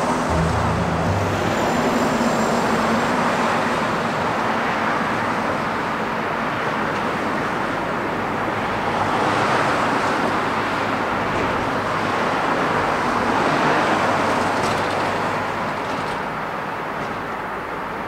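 Road traffic noise: a steady rushing that swells twice as it goes and eases off near the end.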